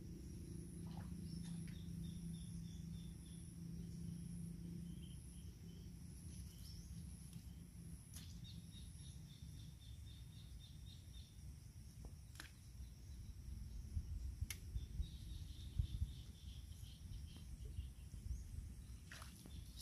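Faint rural ambience: a steady high insect drone with bursts of rapid chirping, over a low rumble. A few sharp clicks and knocks come in the second half.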